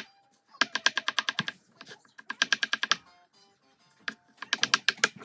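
Fast knife chopping on a cutting board: three quick runs of rapid, even chops, about ten a second, each run lasting about a second.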